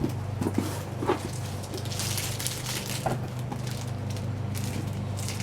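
Rustling and crackly handling noise as a tote bag is moved about and shown, over a steady low hum.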